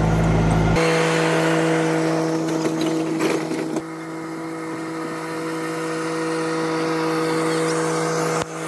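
Small tractor engine pulling a barrel train, running with a steady droning hum. The sound changes abruptly about a second in and again near the end.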